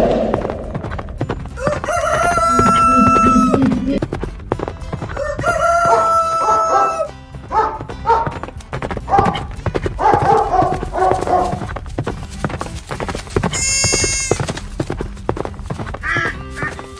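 Animal call sound effects over background music: two long pitched calls, each about a second and a half, a few seconds apart, then a short high call later on.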